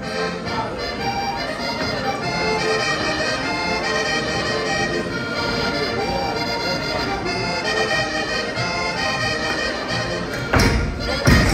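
Accordion playing a Portuguese vira folk tune, a steady melody of held and running notes. About ten and a half seconds in, loud low thumps break in as the rest of the band starts.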